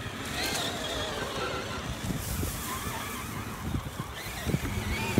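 Electric whine of an X-Maxx RC truck's Castle 2028 800kv sensored brushless motor rising and falling with the throttle as the truck crawls slowly over rough ground. Knocks and thumps from the truck come in near the end, the loudest at the very end.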